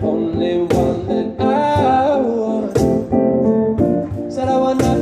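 Live music: a man sings into a microphone over an electric keyboard, with a strummed guitar, and sharp hits land about once a second.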